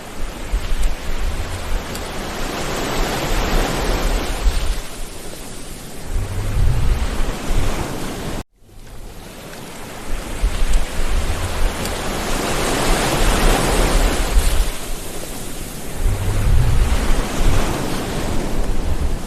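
Sea waves surging in and washing back, the noise swelling and fading every few seconds, with wind rumbling on the microphone. The sound cuts out abruptly for a moment about a third of the way in, then resumes.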